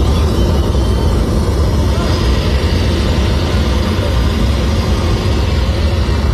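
Deep, steady bass rumble from a large sonidero sound system, loud and dense with no clear beat or voice.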